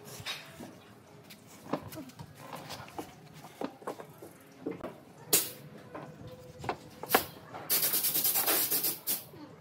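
Wooden boards being handled on a workbench: scattered knocks and clunks of wood set down and bumped together, with two louder knocks, then about a second and a half of rough wood-on-wood scraping near the end as pieces are slid into place.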